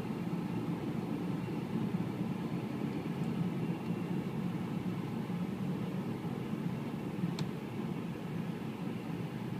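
Steady road and engine noise of a moving car, heard inside the cabin, with a single brief click about seven seconds in.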